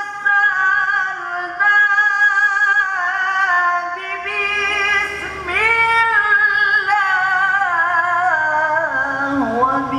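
A man singing a devotional Arabic shalawat in a high, melismatic voice, holding long notes with ornamented turns and a few short breath breaks, the line sinking lower near the end.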